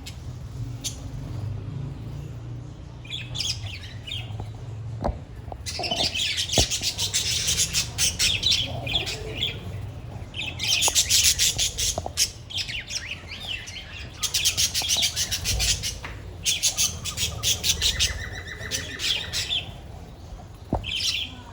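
A colony of budgerigars chattering and chirping together in an aviary, in busy bouts of rapid warbling calls with quieter stretches between, over a low steady hum.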